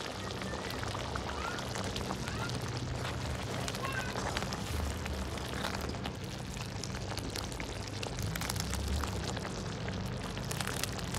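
Sev and tomato curry bubbling at a steady boil in an iron kadhai, a steel ladle stirring through the gravy.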